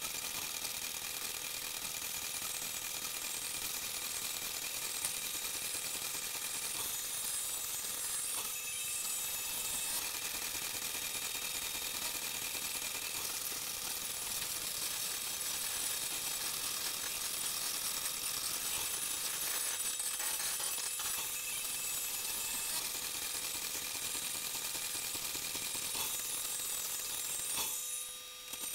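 Steady hiss with a few faint, even whines underneath, the background noise of the recording, dipping briefly just before the end.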